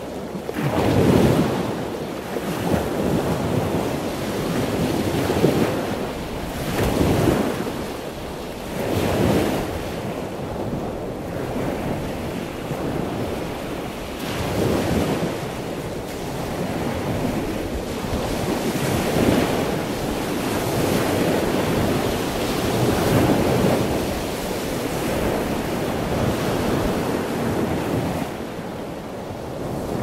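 Water surging and washing in a dense, continuous rush that swells and eases every few seconds.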